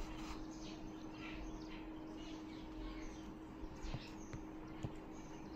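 Faint chirping of small birds in the background, repeated short calls over a steady low electrical hum, with a couple of soft clicks.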